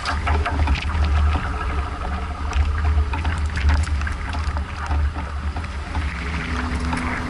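Strong wind buffeting the microphone on a sailboat's deck in heavy weather, a loud, unsteady low rumble over the rush of wind and sea, with irregular sharp crackles.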